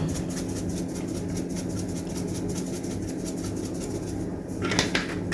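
Black pepper being dispensed over seasoned chicken: a fast, even run of light ticks over a steady low hum, with a louder knock near the end.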